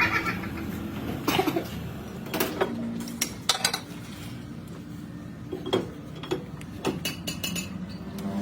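Irregular clinks and knocks of steel tools and parts being handled in a machine shop, some ringing briefly, over a steady low hum.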